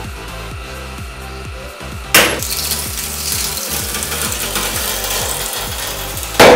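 Glass cooking-pot lid shattering under a hydraulic press: a sudden loud burst about two seconds in, then crackling of the breaking glass as the ram keeps pressing, and a second loud crack near the end.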